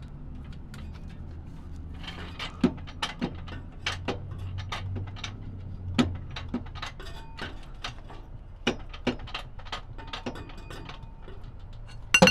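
Irregular metal clicks and clanks from a 2-ton aluminum floor jack being set and worked under a van's rear axle. Its handle is missing its retaining pin, and the handle is busted. A sharp double knock near the end is louder than the rest.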